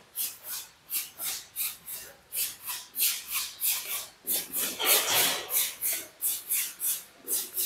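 Brush strokes rubbing over freshly applied sandy Ferrara Design decorative paint on a wall, a scratchy rasp repeating about three times a second. The paint is being worked back over to bring out the sand and glitter in the finish.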